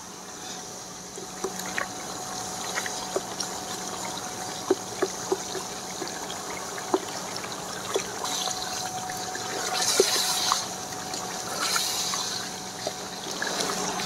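Chicken and whole tomatoes frying in oil in a karahi: a steady sizzle and bubble with scattered sharp clicks. The sizzling swells louder twice, about eight and about twelve seconds in.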